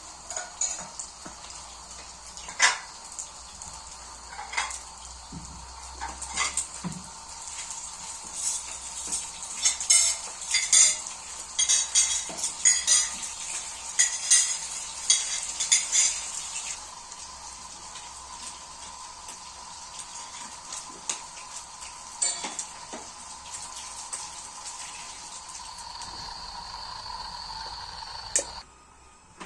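Metal utensils clinking and scraping against a pan and dishes over a sizzle of food frying in oil. The clinks come thickest in the middle, and the sizzle stops about two-thirds of the way through.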